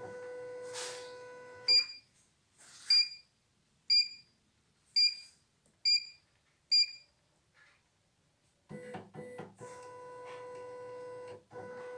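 Key-press beeps from a CNY E900 computerized embroidery machine's touchscreen panel: six short high beeps about a second apart as its buttons are tapped, with a steady hum before and after them.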